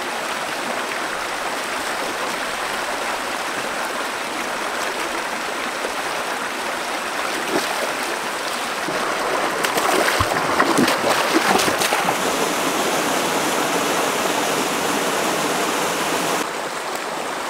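Shallow rocky stream rushing over small cascades, a steady noise of running water. A few short splashes come partway through, between about 7 and 12 seconds in, as someone wades through the shallows.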